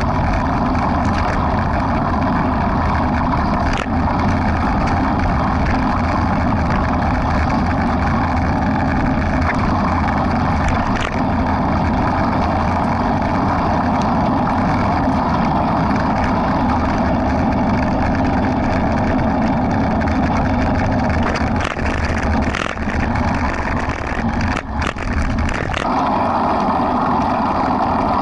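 Steady wind noise on the microphone of an action camera carried by a running runner, a low rush with the jostle of the stride. It dips briefly, with a few clicks, about three-quarters of the way in.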